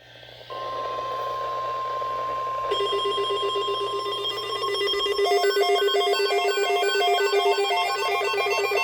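Weather radio alert: a steady one-pitch alert tone of about 1050 Hz with radio hiss and hum. About three seconds in, a louder electronic alarm joins it, a rapid warbling pattern of alternating beeps that rings like a telephone.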